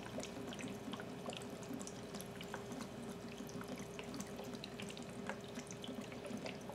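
Vodka trickling in a thin stream from a bottle into a glass jar packed with crushed sweet gum seed pods, a faint steady pour with small scattered ticks and crackles as the liquid runs down among the pods.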